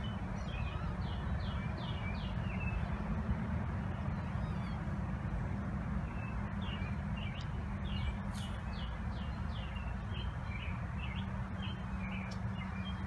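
Bird song: runs of short, downward-slurred whistled notes, about three a second, in two bouts, over a steady low hum.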